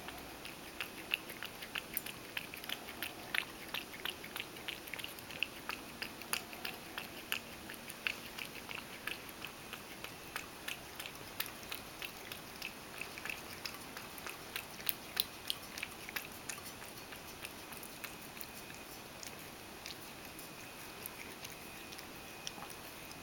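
Ragdoll cat lapping milk from a stainless steel bowl: quick wet tongue clicks, about four a second, thinning out later and stopping near the end.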